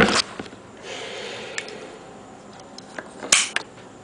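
Knives being handled and set down side by side: a sharp click or knock at the start, a brief rustle about a second in, and another sharp click about three seconds in.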